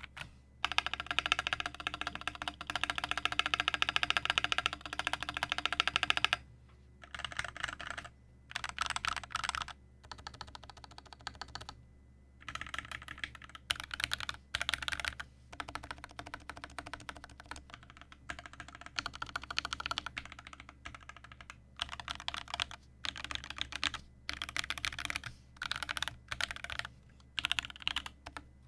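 Typing on a Duck Orion 2.5 custom mechanical keyboard with an aluminium plate, foamless case, lubed and filmed Wuque Studio Original Aspirations switches and GMK ABS keycaps, miked from directly above. A fast, continuous run of keystrokes for about six seconds, then short bursts of typing broken by brief pauses.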